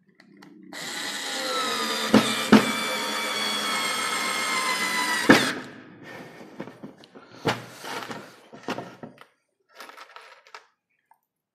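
Daewoo 3.6 V cordless screwdriver motor whining steadily as it drives a screw into wood, its pitch dipping just after it starts. Three sharp cracks sound during the run. It stops about halfway through, followed by scattered handling clicks and knocks.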